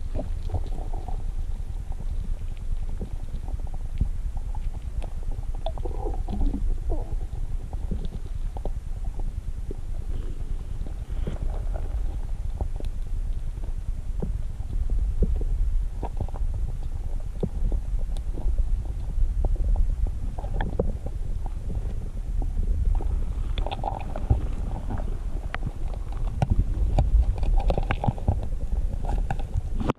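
Muffled low rumble of moving water around a submerged action camera's waterproof housing, with scattered soft knocks and clicks.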